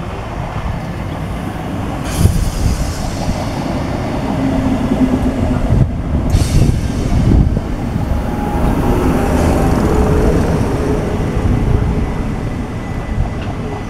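Thameslink Class 319 electric multiple unit running past along the platform, its wheels rumbling steadily on the track, with two brief louder rushes about two and six seconds in.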